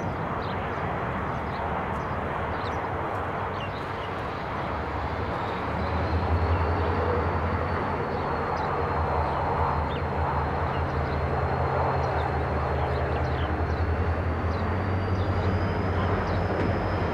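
Two ALF-class diesel-electric locomotives running at the head of a stationary ballast train with a steady low engine drone, which grows louder about six seconds in as they power up to move off.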